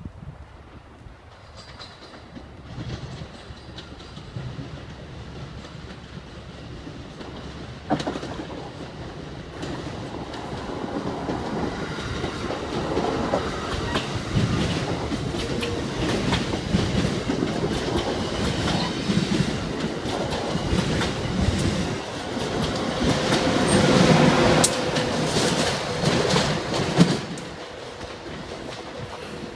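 Amtrak Keystone train of Amfleet coaches with an AEM7DC electric locomotive passing at speed on electrified main line: a rising rumble with wheels clicking rapidly over rail joints, starting suddenly about eight seconds in, growing louder, and dropping off sharply near the end as the locomotive goes by.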